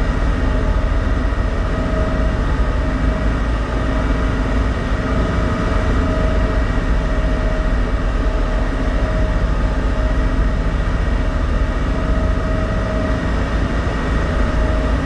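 Steady low rumble of a car ferry's engines and machinery heard aboard, with a few constant hum tones riding over it and no change in pace.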